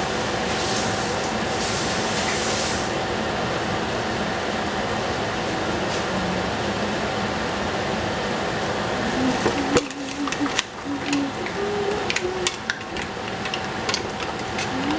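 A steady rushing hum of kitchen appliance noise cuts off abruptly about ten seconds in. Sharp clinks and taps of utensils against pots and dishes follow.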